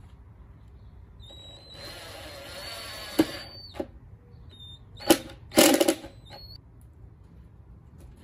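Ryobi cordless impact driver running a screw into a pine board, its motor whining for about two and a half seconds with the pitch creeping up. It is followed by a few sharp knocks and, the loudest sound, a short burst of clatter about halfway through.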